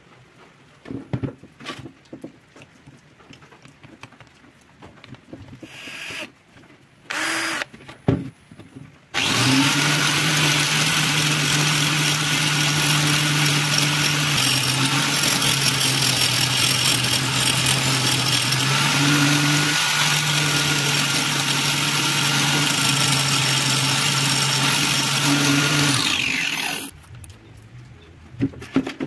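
Angle grinder switched on about nine seconds in and running steadily, with a constant low motor hum, as the end of a strip is ground against its cutting disc to a narrow tip; it cuts off about eighteen seconds later. Light handling clicks and knocks come before and after.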